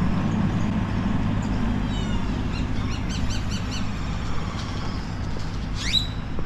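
A motor vehicle engine idling steadily. Over it a bird gives a run of short, quickly repeated rising chirps about two seconds in, and a single sharp rising whistle comes near the end.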